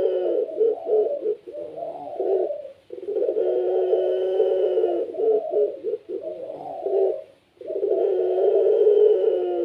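Puter pelung, a domestic Barbary dove, cooing over and over: each call is a long held coo that breaks into a few short choppy notes, with a fresh call starting about every four and a half seconds, three times here.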